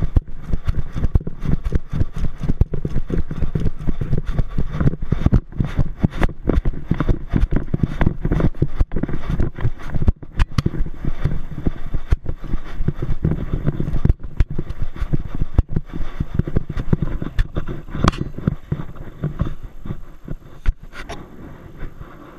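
Handling noise from a camera strapped to a running dog's chest harness: a steady low rumble of rubbing and jostling, broken by frequent irregular knocks as the mount bumps with the dog's strides.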